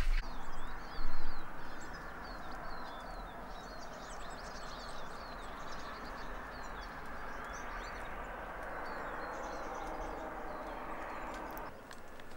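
Small birds chirping and calling, many short high calls overlapping, over a steady outdoor hiss. A brief louder noise comes about a second in.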